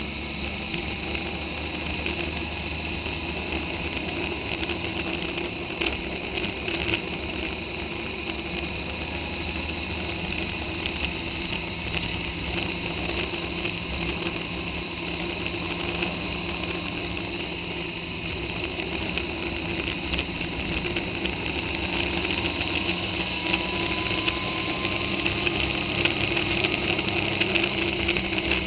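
Motorcycle under way on a rough country road: steady engine and wind noise with frequent small clicks and knocks from the bumpy surface. Near the end the engine note rises and the sound grows louder as the bike picks up speed.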